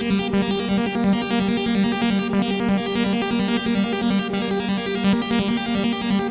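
Arpeggiated sawtooth synth lead from FL Studio's 3xOsc, a fast, even run of repeating notes, played through a lowpass filter (Fruity Love Philter's 'EF Lowpass' preset), tempo-synced delay and reverb.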